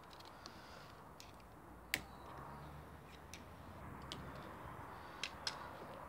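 Faint, irregular metallic clicks and ticks of pipe pliers working a spring hose clip, with one sharper click about two seconds in.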